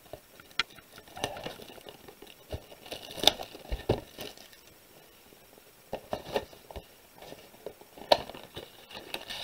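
Hands handling and opening a cardboard Pokémon card pre-release kit box: scattered light taps, scrapes and rustles of cardboard.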